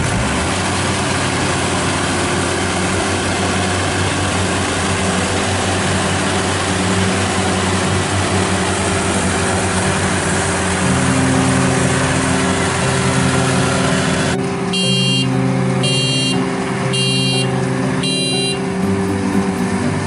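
Maxxi Bimo 102 rice combine harvester's engine running steadily; about 14 seconds in, its loud reversing alarm beeps four times, about a second apart.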